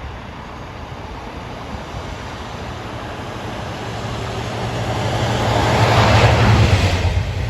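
Diesel locomotive engine approaching and passing, growing steadily louder to a peak about six seconds in, then falling away.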